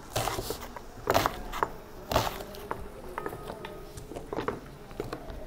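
Small kitchen knife cutting on a cutting board: a few irregular knocks, the strongest about one and two seconds in, over a faint steady hum.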